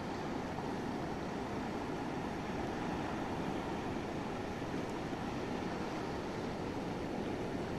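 Steady shoreline ambience: a constant, even rush of surf and wind with no distinct events.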